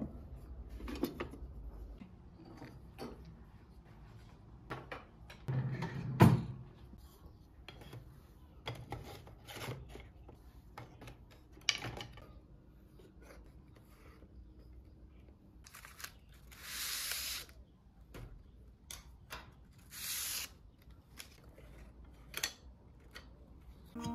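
Household handling sounds: irregular knocks and clicks of objects being moved and set down, the loudest about six seconds in, with a longer rush of hiss or tearing about seventeen seconds in and a shorter one about twenty seconds in.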